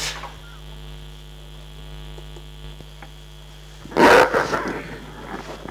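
Steady electrical mains hum on the sound system's microphone feed. About four seconds in there is a loud, brief noisy burst, then smaller rustles.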